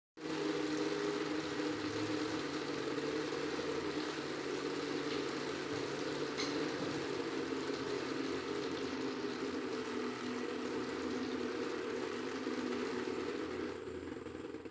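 Small electric water pump humming steadily under running water from a homemade tabletop waterfall.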